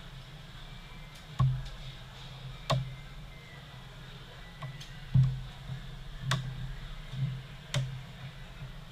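About six scattered sharp clicks and light knocks over a steady low hum.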